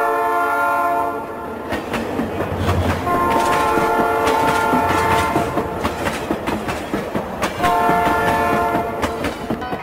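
Diesel locomotive's multi-tone air horn sounding a chord in three blasts: one ending shortly after the start, a longer one from about three seconds in, and a short one near the end. Between and under the blasts the train's wheels clatter over the rail joints.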